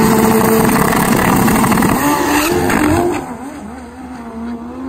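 Turbocharged Kawasaki KZ four-cylinder drag bike at full throttle as it launches down the strip. Its pitch steps a couple of times about two seconds in as it shifts gear. Then it fades quickly as it pulls away.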